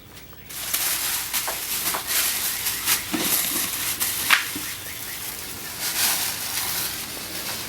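Gift wrapping and packaging crinkling and rustling as it is handled and moved: a dense crackle with sharp snaps, starting about half a second in.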